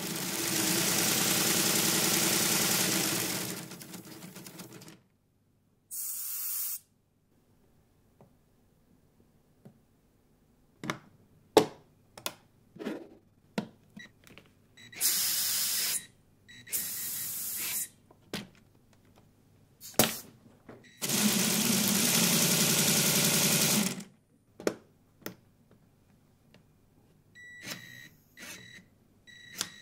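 A Lego pneumatic engine running on compressed air in two spells, one near the start and one about three-quarters of the way through. Between them come sharp clicks of Lego parts being handled, and short whirs of a small Lego electric motor throwing a valve lever.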